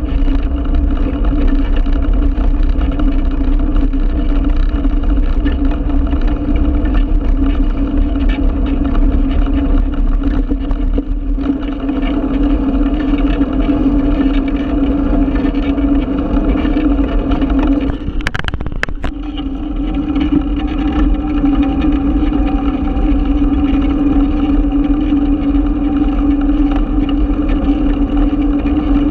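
Bicycle riding over paving and asphalt, heard through a camera mounted on its handlebars: a steady drone of road vibration and wind with a low hum running through it. A short clatter comes about eighteen seconds in, as the hum briefly drops away.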